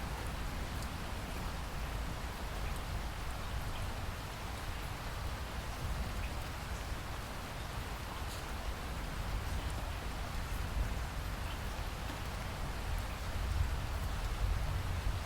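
Steady rain falling, a continuous hiss with scattered individual drop ticks, swelling slightly near the end.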